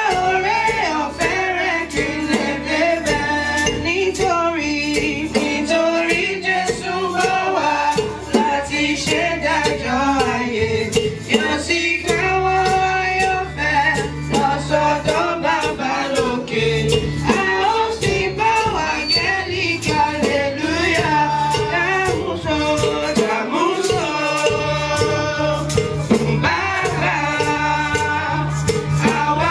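Group of voices singing a song with rhythmic percussion strokes and a steady bass line under it.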